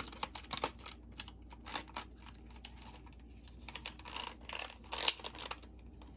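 Irregular small plastic clicks and clacks from handling a Sony WM-FX28 cassette Walkman, as its buttons and case are worked while it is tested after a contact repair. A few scraping rattles come about two thirds of the way in.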